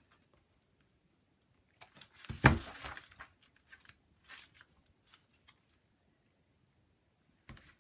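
Large scissors snipping through a strip of paper washi tape about two seconds in, the loudest snap about two and a half seconds in. A few faint short rustles and taps follow as the tape is handled and pressed down.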